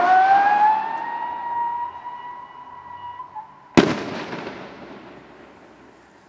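Whistle rocket's whistle climbing away, rising slightly in pitch and fading over about three seconds, then a single sharp bang of its flash-powder break almost four seconds in, echoing away.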